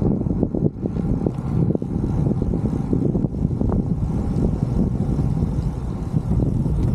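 Wind buffeting the microphone of a camera on a road bike moving at about 25 km/h: a steady low rumble with constant flutter.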